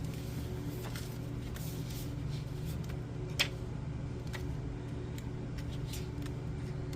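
Faint handling noises, light rustles and taps, with one sharp click about three and a half seconds in, over a steady low electrical hum.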